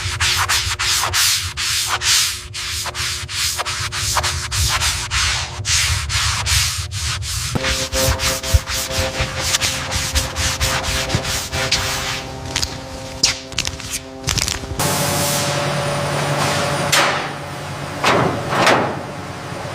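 Sanding: rapid, repeated back-and-forth rubbing strokes. About fifteen seconds in they give way to a steadier hiss.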